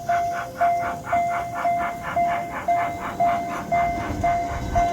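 Miniature park train passing, giving a rhythmic chugging with a ringing tone repeated about twice a second.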